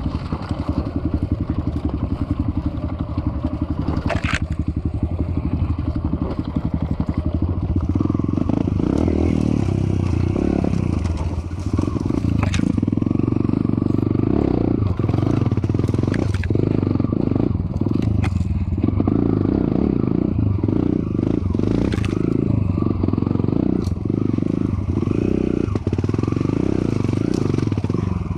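Enduro dirt bike engine running at low revs with a rapid, even chug as the bike picks its way over rough rocky ground, louder from about eight seconds in. Scattered knocks and clatter from rocks striking the bike and its suspension bottoming over them.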